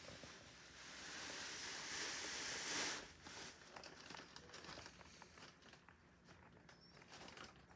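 Cardboard and plastic wrapping rustling and crinkling, building for about two seconds and stopping abruptly about three seconds in, followed by faint scattered ticks.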